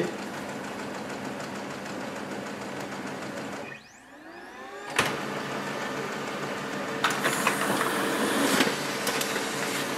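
Xerox B230 laser printer running through a test-page print: a steady mechanical whir, a brief dip about four seconds in where a motor's pitch slides, a sharp click at five seconds, then a steady hum with a held tone that grows louder and busier from about seven seconds as the page feeds through.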